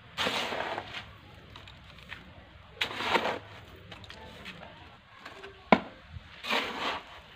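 Scoops of sandy potting mix (Malang sand and soil) being tipped from a trowel into a pot around a newly planted tree: three short rustling pours, about three seconds apart. A single sharp knock comes between the second and third pour.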